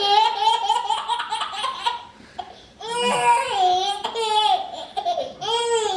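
A one-year-old baby laughing hard in long, high-pitched belly laughs, breaking off for a moment about two seconds in and then laughing again.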